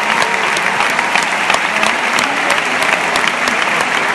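Audience applauding steadily, a dense even mass of clapping.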